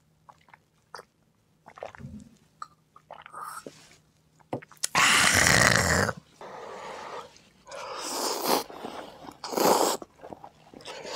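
Eating sounds: a few seconds of soft clicks and chewing, then loud breathy slurps, including ramen noodles slurped from a bowl near the end.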